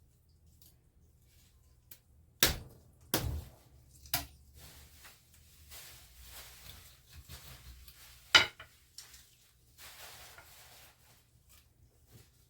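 Knife chopping through a raw chicken on a cutting board: four sharp chops, the first three about a second apart and the loudest a few seconds later, with softer scraping and handling of the meat in between.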